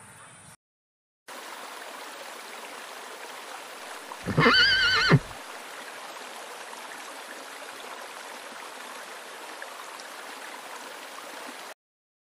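A horse whinnying once for about a second, its pitch wavering, over a steady background hiss.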